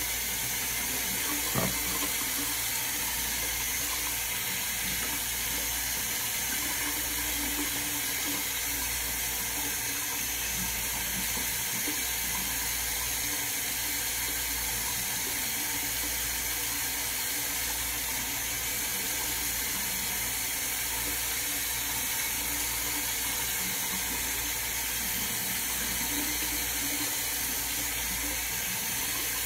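Water running steadily from a tap into a sink, with one short knock about a second and a half in.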